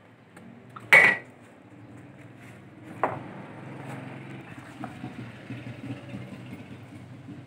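A sharp knock with a short ringing tone about a second in, then a duller knock about two seconds later, as the treadmill's white metal frame and handlebars are moved about in their cardboard box. A low steady hum runs underneath and grows louder.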